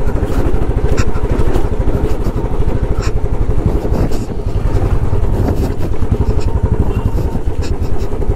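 Motorcycle engine running steadily while riding, its exhaust pulsing in a fast even rhythm, with a few short knocks along the way.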